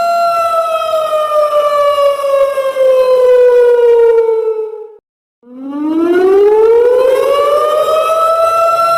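Siren wailing: one pitched tone slowly falls in pitch, cuts out for a moment about five seconds in, then rises back up and holds steady.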